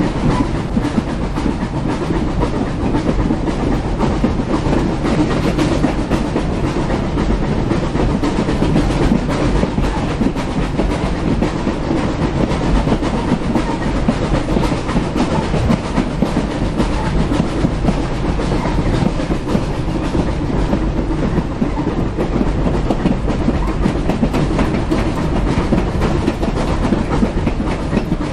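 Train running along the track, heard from on board: a steady rumble and clatter of the carriage wheels on the rails.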